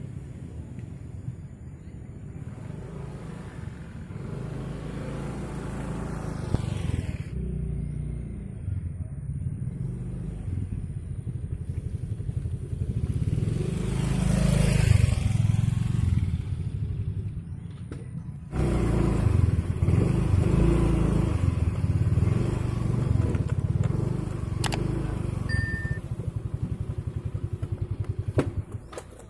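Small motorcycle engine running, swelling louder about halfway through as it comes close, then breaking off abruptly about two-thirds in before the engine sound carries on.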